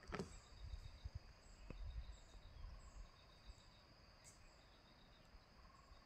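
Near silence: faint, steady high-pitched insect chirring in dry forest, with a soft low rumble in the first few seconds.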